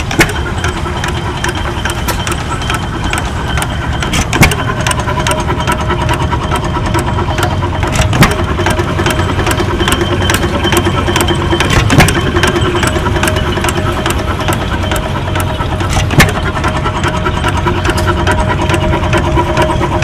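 Dunnville Monarch hit-and-miss gas engine of about 4 hp running on its governor: five sharp firing bangs about four seconds apart, with the engine coasting on its flywheels and clicking steadily between them.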